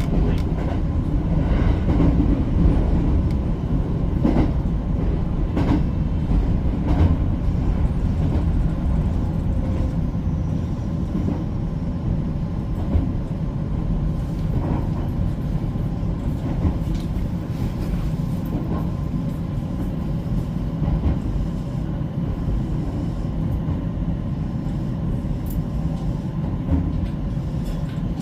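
JR West 225 series electric train running along the track, heard from inside the car: a steady low rumble with a wheel clack over the rail joints every second or so for the first several seconds, then a smoother, slightly quieter run.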